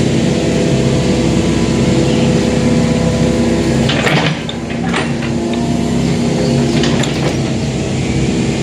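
Engine running steadily, with a few short knocks or clanks about halfway through.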